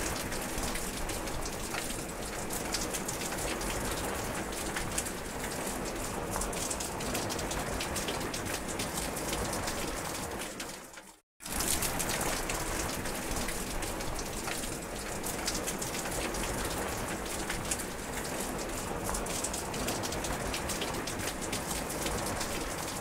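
Steady rain falling: a dense, even hiss of many small drop ticks. It cuts out for a split second about eleven seconds in, then resumes.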